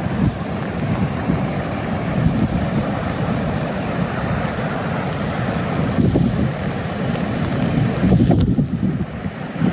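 Floodwater from an overflowing creek rushing past in a steady roar, mixed with gusts of wind buffeting the microphone.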